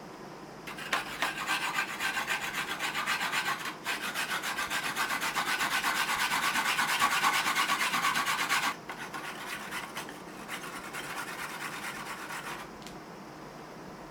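Onion being grated on a grater: a quick, rhythmic rasping, stroke after stroke, loudest in the middle and softer for the last few seconds before it stops.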